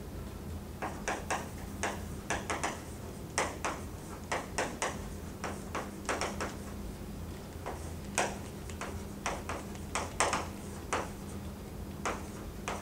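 Chalk writing on a blackboard: a string of quick, irregular taps and short scratches as the letters are written, over a steady low hum.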